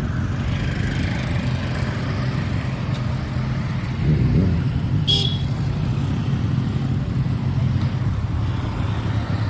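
Motorcycle engines idling together, a steady low rumble, with a brief sharp high click about five seconds in.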